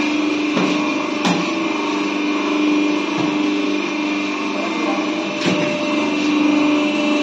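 Notebook-making machine running with a steady motor hum, with a few sharp clunks as notebooks are fed through it.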